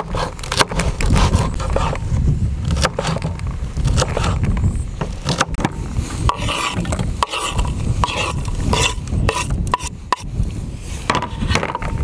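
A kitchen knife chopping green peppers on a wooden cutting board, the blade knocking on the wood in quick, irregular taps. About halfway through, the blade scrapes the chopped pieces across the board into a metal pan. A steady low rumble lies underneath.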